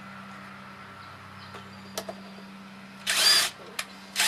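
Cordless drill-driver running in one short burst about three seconds in, driving a screw into a wooden bat-house partition, then starting again at the very end. Light clicks come between the bursts, over a low steady hum.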